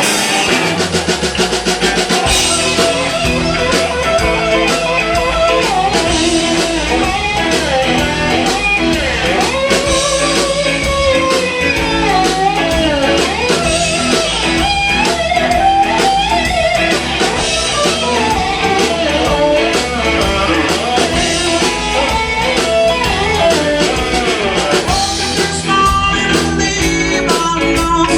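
Live blues-rock band playing an instrumental passage: an electric guitar lead with bending notes over bass and drum kit.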